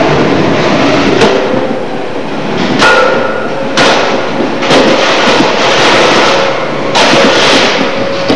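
Combat robots' spinning weapons whining steadily, a shell spinner against a vertical spinner, with about five sharp metallic hits as they collide.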